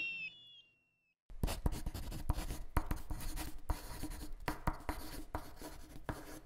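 Fireworks: the tail of falling whistles fades out, then after a short gap a dense crackling of many small, sharp pops begins about a second in and keeps going.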